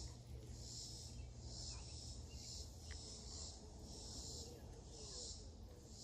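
Faint insect buzzing outdoors, a high hiss that swells and fades in repeated pulses about half a second apart, over a low rumble.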